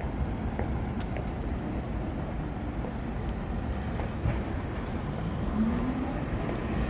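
Road traffic at a busy city intersection: cars, taxis and a bus running and passing, a steady low rumble of engines and tyres. An engine note rises in pitch about five and a half seconds in.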